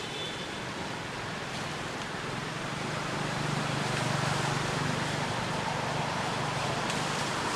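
Steady outdoor background noise. About three seconds in, a low, steady engine hum joins it, like a motor vehicle running at a distance.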